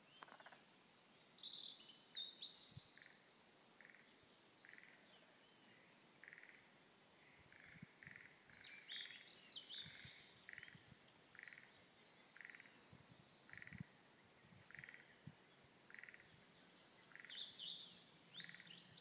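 Blue-and-white flycatcher singing: three short, varied, high warbled phrases about eight seconds apart. A steady series of short lower calls repeats under them about one and a half times a second.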